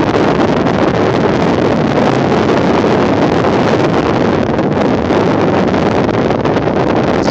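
Wind buffeting the phone's microphone: a loud, steady rushing noise with no clear tone.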